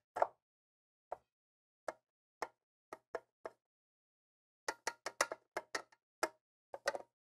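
Scattered light clicks and taps of hands and a tool working on the air conditioner's metal motor frame, with a quick run of clicks about five seconds in and a few more near the end.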